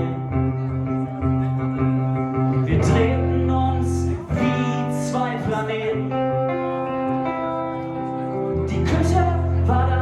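Music: a pop song with plucked guitar, sustained chords over a steady bass, and a regular beat.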